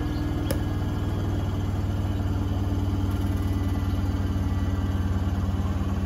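Beko WTK104121A washing machine in its final spin, the drum turning at high speed: a steady motor hum with a steady tone and a fast, even pulse from the rotating drum.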